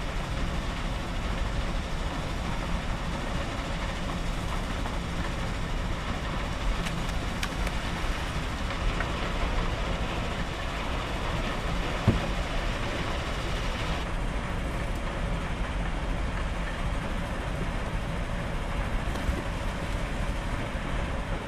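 Steady drone of construction machinery, with one sharp knock about halfway through.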